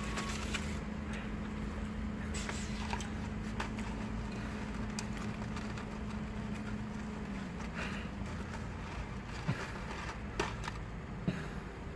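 A person eating fast food: chewing and mouth sounds with scattered soft crackles and rustles, and a few sharper clicks near the end, over a steady low hum that stops about two-thirds of the way through.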